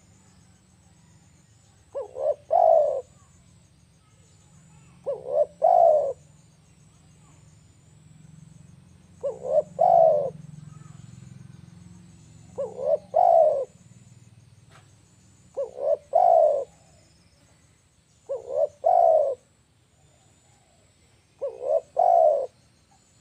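Spotted dove cooing: seven phrases about three seconds apart, each two short notes running into a longer coo.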